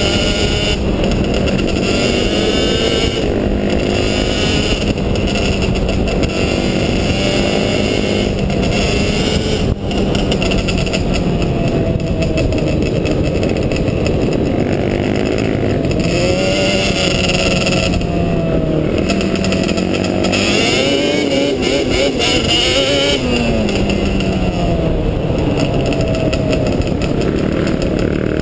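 Sport quad engines revving up and down as they are ridden, the pitch rising and falling over and over, sometimes more than one machine at once.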